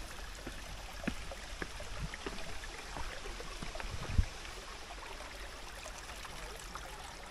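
Steady rush of a small waterfall and its rocky stream, with scattered light clicks and a low thump about four seconds in.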